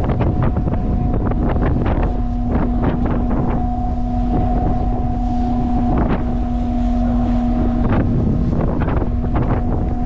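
Strong wind buffeting the microphone on a ship's open deck in rough seas, with frequent short crackles. Under it runs a steady hum from the ship.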